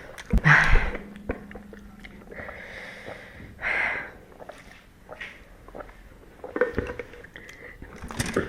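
A person eating spicy ramen at close range: several short, noisy slurps of noodles with chewing and small mouth clicks in between.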